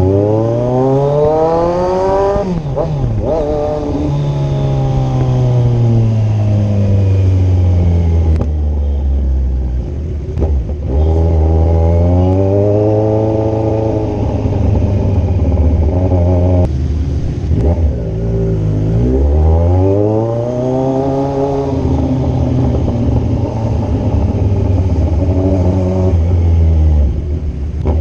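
Kawasaki Z1000 inline-four engine revving as the motorcycle accelerates. The pitch rises and falls three times, over a steady low rumble.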